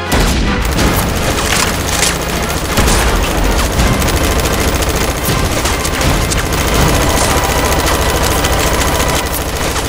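Continuous rapid machine-gun fire from a belt-fed Nerf Vulcan blaster, a dense unbroken rattle of shots with a heavy low thud, starting abruptly.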